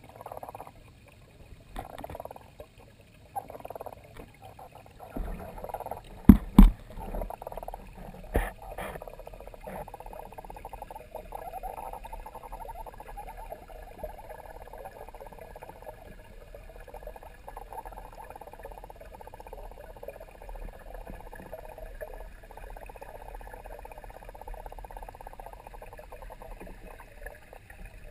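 Muffled, steady underwater noise of a garden pond heard through a GoPro HD Hero2's sealed waterproof housing, with three sharp knocks between about six and eight and a half seconds in.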